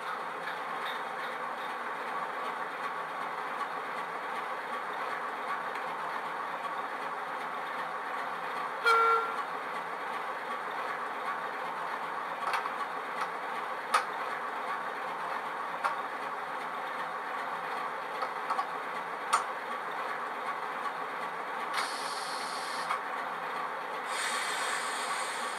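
Hornby Class 08 shunter model's DCC sound decoder (Legomanbiffo sound file) playing a diesel engine idling steadily through a small bass-enhanced speaker. A short horn blast comes about nine seconds in, with a few sharp clicks later and two bursts of hiss near the end.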